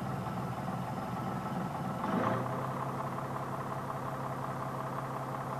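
Leyland bus diesel engine idling to supply oil pressure to the Hydracyclic gearbox during a cylinder pressure test at the restrictor plug. About two seconds in the sound briefly gets louder, then settles to a steadier low hum.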